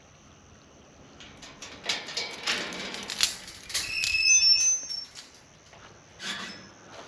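Rustling and clattering of something being handled for a few seconds, with a brief high squeak about four seconds in.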